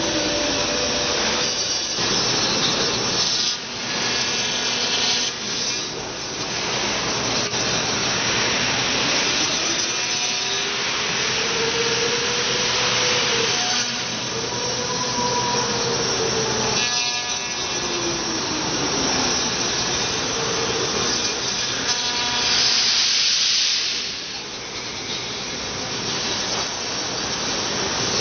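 Industrial CNC machine running with a dense, steady whir, and a whine that rises and falls in pitch several times as the machine speeds up and slows down.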